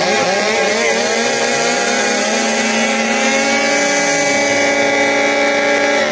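Several sidecarcross outfits' motocross engines revving up and down, overlapping one another. About halfway through, one engine holds steady at high revs for a few seconds.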